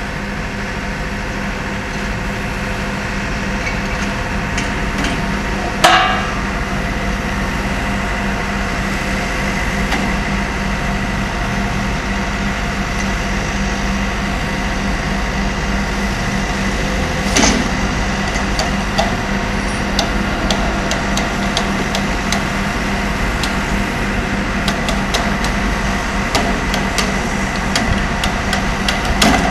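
Heavy earthmoving machinery's diesel engine running steadily, with sharp metal clanks about six seconds in and again around seventeen seconds, and lighter clicks and knocks through the later part.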